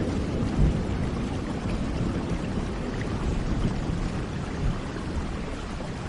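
Steady rain with a low rumble of thunder slowly dying away.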